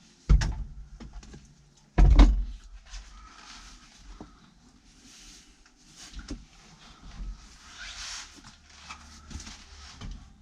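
Two heavy thuds about two seconds apart, then lighter knocks and rustling: a bucket seat being carried and bumped into place in a car.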